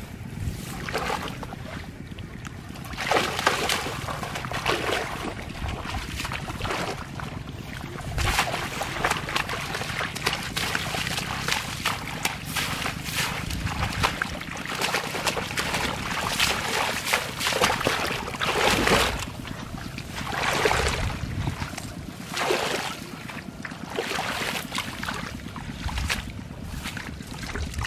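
Shallow muddy water splashing and sloshing as hands grope and churn through it, in irregular surges of a second or two.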